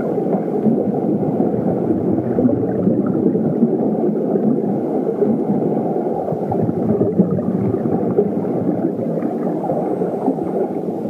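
Wind rushing over the microphone of a camera carried by a skier at speed down a slope: a steady low rush, with the hiss of skis running on snow in it.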